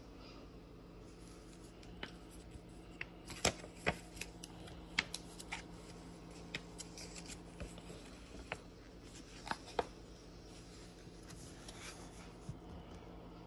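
Paper instruction booklet being handled and unfolded: scattered crisp crinkles and clicks, loudest about three and a half seconds in and again near ten seconds.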